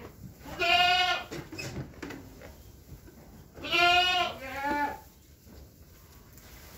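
Goats bleating: two loud, wavering bleats about three seconds apart, the second followed at once by a shorter one.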